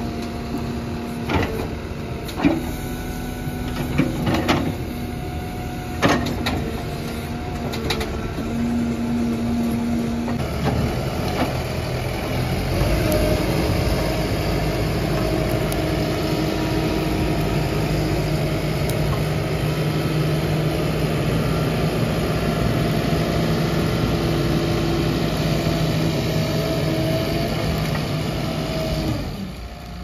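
Tata Hitachi Shinrai backhoe loader's diesel engine running, with a few sharp metal clanks in the first several seconds as the backhoe bucket works. From about twelve seconds in the engine runs louder and steadier under load as the front loader bucket pushes brush, easing off just before the end.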